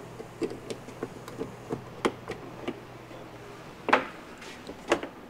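A scatter of light, irregular knocks and clicks from hands handling things, with two louder knocks about four and five seconds in, over a faint steady hum.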